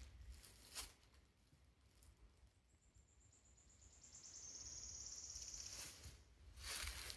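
Footsteps on the woodland floor about a second in and again near the end. Between them comes a high, thin trill lasting about three seconds that dips slightly in pitch.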